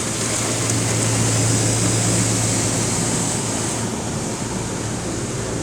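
Ryko SoftGloss Maxx automatic car wash running, a steady rushing noise heard from inside the car, with a steady low hum underneath. A bright hiss in the rush eases off about four seconds in.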